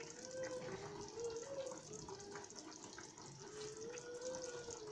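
A curry simmering in an aluminium pot on a gas stove: faint bubbling and small crackles, over a faint wavering hum.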